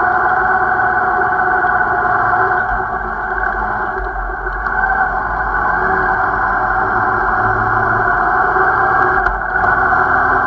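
Yamaha XJ6 Diversion's 600 cc inline-four engine running steadily while riding at low road speed, mixed with rushing road noise. The level dips briefly about four seconds in.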